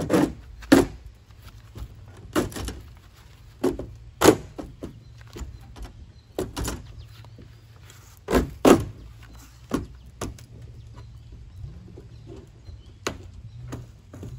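A fiberglass deck cap being pried off a sailboat hull along the hull-to-deck joint: a string of sharp cracks and snaps at irregular intervals as the cap pops loose.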